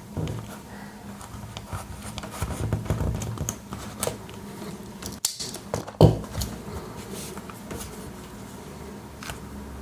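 Close handling noise of a Swiss Army knife and its paracord lanyard being worked by hand: light rustling and small metallic clicks, with one sharper click about six seconds in.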